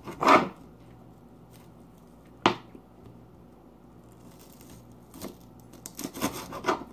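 Kitchen knife cutting an onion on a cutting board: a couple of louder single knife hits near the start and about a third of the way in, then a quick run of short sawing cuts and taps in the last two seconds.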